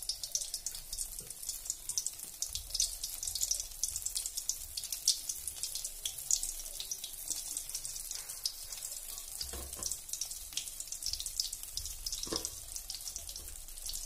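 Hot oil sizzling and crackling steadily around stuffed brinjals frying in a kadhai, with a few soft knocks in the second half.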